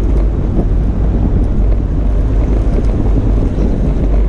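Toyota FJ Cruiser driving on a snowy trail: a steady low rumble of engine and tyres, with wind buffeting the microphone.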